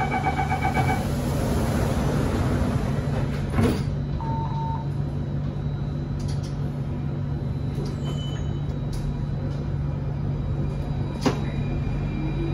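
Alstom Metropolis C830 metro train at a station: rapid door-closing warning beeps, then the sliding doors shut with a knock a few seconds in, over a steady low hum from the stationary train. Near the end a whine from the traction motors starts to rise in pitch as the train begins to pull away.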